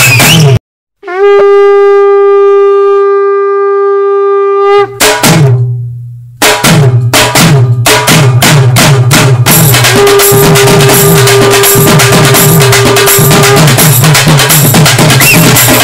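Background music with a drum beat. It cuts out for a moment, a single long wind-instrument note is held for about three and a half seconds, and then the drums come back in.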